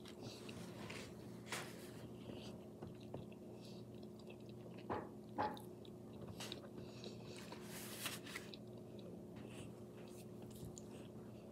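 Close-up mouth sounds of a person chewing a mouthful of shrimp scampi pasta, with wet smacks and a few sharp clicks, the loudest about five seconds in, over a faint steady hum.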